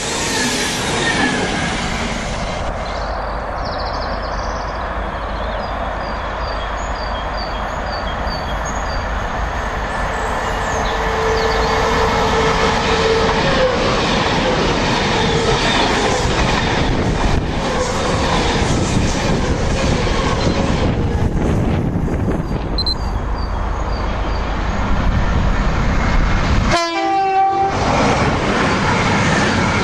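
Virgin Trains Class 390 Pendolino electric train passing close at speed, a loud steady rumble of wheels on rail with a clickety-clack. Midway a train horn sounds one steady note for about three seconds. Near the end the sound breaks off briefly and a CrossCountry Voyager diesel train is heard coming in.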